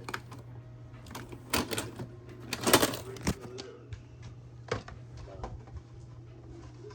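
A series of sharp clicks and knocks at uneven intervals, the loudest about three seconds in, over a steady low hum.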